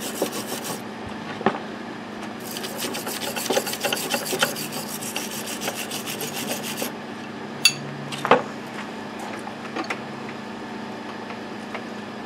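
Wire brush scrubbing loose corrosion, loosened by electrolysis, off a machinist's vise's threaded steel spindle in quick back-and-forth strokes. The scrubbing comes in two spells with a short pause between them. Two sharp knocks come about eight seconds in, and after them it is quieter.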